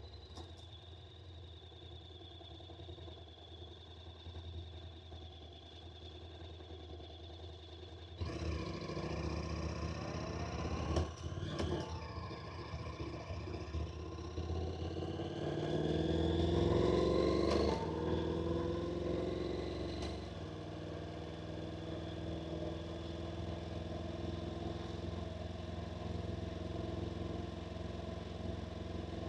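Honda NC750X motorcycle engine, a parallel twin, running steadily at low revs, then pulling away about eight seconds in. The revs climb in two stretches, the second louder, and settle to a steady cruise after about twenty seconds.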